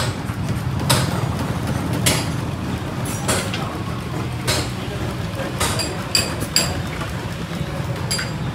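Workshop noise: a steady low hum with about eight sharp metallic clinks, spaced irregularly about a second apart, two of them close together past the middle.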